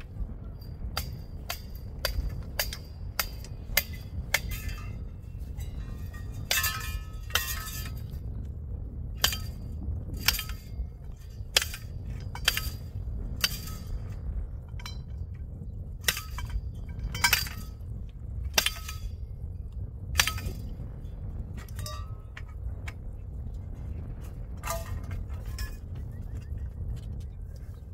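Metal tent-frame pipes clinking and knocking together as they are fitted at their joints: irregular sharp taps, several ringing on briefly, over a low steady rumble.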